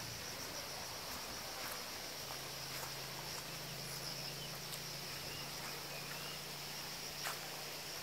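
Steady, high-pitched chorus of insects in the trees, with a low steady hum coming in about two seconds in and a few faint ticks.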